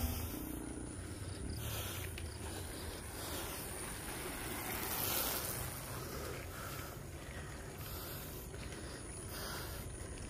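Wind rushing over the action-camera microphone on a moving bicycle, with a steady low rumble and short hissy gusts every second or two. It swells slightly about five seconds in.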